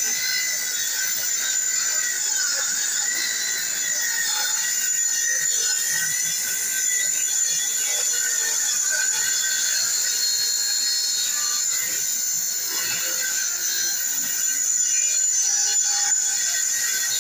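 Circular table saw running and ripping a thin reclaimed pine crate board: a steady high-pitched whine whose pitch sags slightly now and then as the wood loads the blade.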